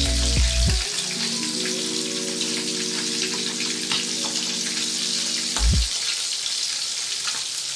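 Bilong-bilong fish frying in hot oil in a wok: a steady sizzle with scattered crackles and spatters.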